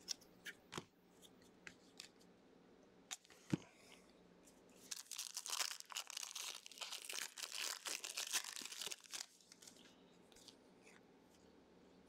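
A trading-card pack being torn open by hand, its wrapper crinkling and tearing for several seconds in the middle. Before that come a few light clicks of cards being flipped through.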